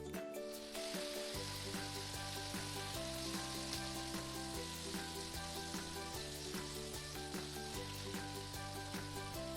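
Leaf-wrapped prawn parcels (chingri paturi in bottle gourd leaves) sizzling as they shallow-fry in a little oil over low heat. The sizzle comes up about a second in. Background music plays throughout.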